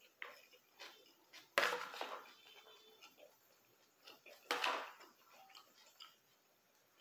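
Eating sounds close to the microphone: a fork scraping and clinking on a plate, with chewing. Two louder scraping noises come about one and a half and four and a half seconds in.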